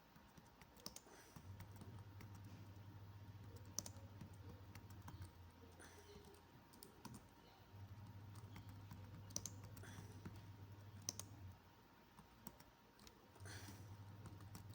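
Faint computer keyboard typing: scattered, irregular key clicks. A low hum under them switches on and off a few times.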